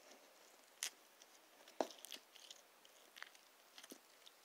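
Dried-out purple slime squeezed and kneaded in the hand, giving faint scattered crackles and clicks from its dry, crumbly parts. The sharpest click comes a little under two seconds in.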